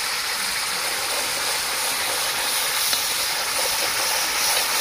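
Chicken curry gravy sizzling in a kadai over a wood fire, a steady hiss that holds even throughout.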